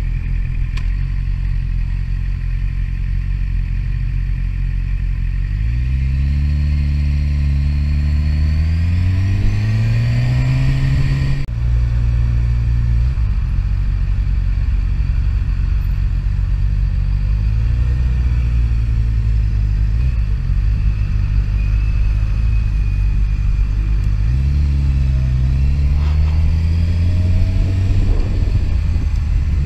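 Sportbike engine running steadily under the rider, rising in pitch as the motorcycle accelerates, once about a third of the way in and again near the end. The sound breaks off abruptly shortly after the first rise.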